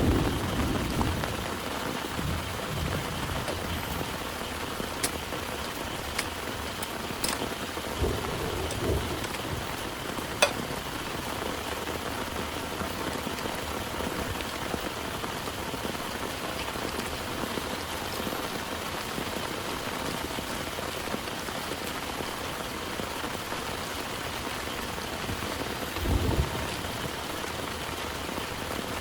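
Heavy rain falling in a steady hiss. A low roll of thunder fades out in the first second, and brief low rumbles come around a third of the way in and again near the end, with a few sharp drop ticks in between.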